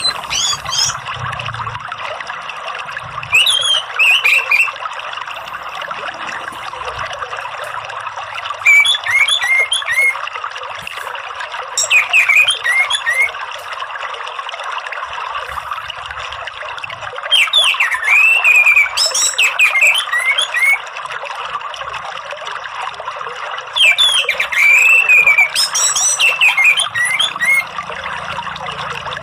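Orange-headed thrush singing in five quick phrases of varied, warbling whistles, spaced a few seconds apart, over a steady rush of running water.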